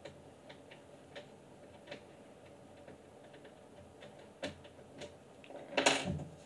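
Faint metallic clicks and ticks of a small tool working a screw out of a Hi-Point 995 9mm carbine, with a louder clatter and knock near the end.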